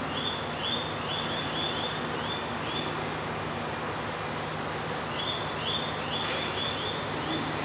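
Aoimori Railway 701 series electric train humming steadily at the platform and starting to move off near the end, with a single sharp click about six seconds in. Over it, two runs of about six evenly repeated high chirps.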